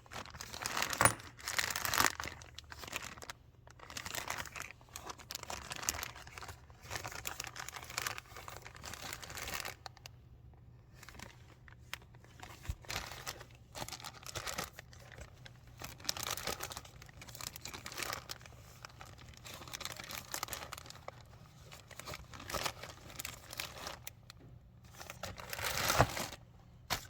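Plastic parts bags rustling and crinkling in hand as engine bolts are sorted and bagged, in irregular bursts with a few sharper clicks. The loudest handling comes about a second in and again near the end.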